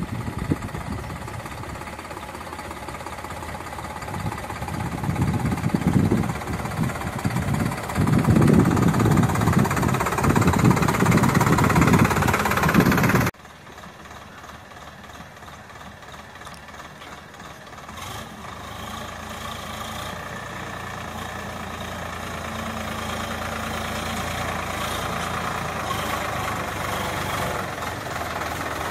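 Sonalika DI 47 RX tractor's diesel engine running as it hauls a loaded trailer of well-digging spoil, with heavy uneven wind buffeting in the first half. After a sudden cut about halfway, the engine grows steadily louder as the tractor approaches.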